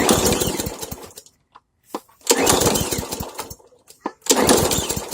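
Briggs & Stratton engine on a Hyper Tough push mower pulled over with the recoil starter three times, about two seconds apart. Each pull spins the engine briefly before it dies away without catching, which the owner puts down to too little gas in the tank.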